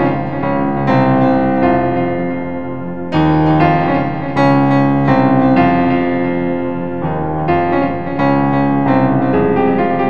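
Keyboard music, piano-like, with slow sustained chords struck about every one to two seconds.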